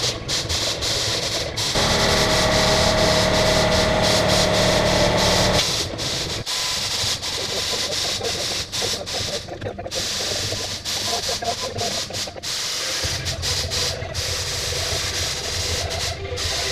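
Wagner Flexio 2000 HVLP paint sprayer running: a steady hiss of air with a motor whine, louder with a held tone from about two to six seconds in. It is broken by frequent abrupt cuts.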